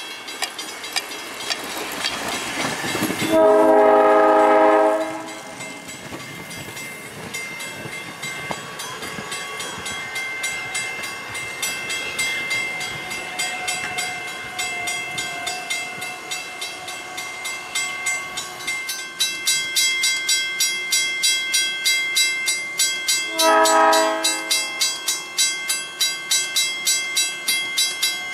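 South Shore Line electric multiple-unit commuter train passing close by. It sounds its horn twice: a chord blast about three seconds in and another about twenty-three seconds in. In the second half the wheels clickety-clack over the rail joints in a steady rhythm of about two clicks a second, growing louder.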